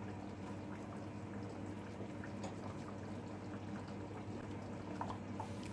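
Thick coconut-milk chicken curry simmering in a stainless steel saucepan on a gas hob: faint bubbling with scattered small pops over a low steady hum.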